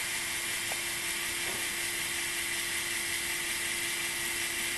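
WORX WX240 mini electric screwdriver running free with no load, a steady whir with one even tone, its bit spinning at about 320 rpm.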